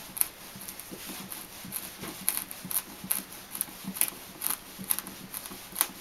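Small wood screw being turned by hand with a screwdriver up into the underside of a wooden cabinet: a string of short clicks and creaks, unevenly spaced at about two a second, as the screw is started in the wood.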